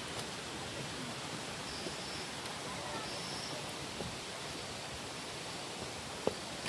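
Steady rush of a nearby stream, with a few faint footsteps on a rocky trail and a sharper click near the end.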